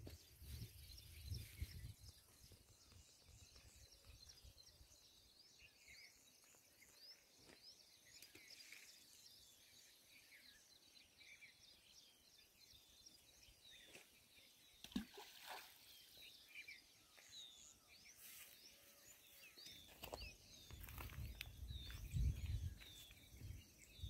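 Faint outdoor ambience of many small birds chirping and calling in quick short notes, with a low rumble on the microphone just after the start and again near the end.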